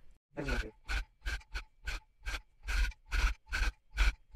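Electric tufting gun punching pink yarn into stretched primary tufting cloth while a letter is filled in. It runs in short bursts, a little over two a second, starting a moment in.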